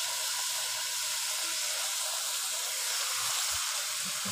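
Shalgam gosht, a turnip and meat curry, sizzling steadily in an aluminium pot as it cooks down in its oil, nearly done; a steady, even hiss.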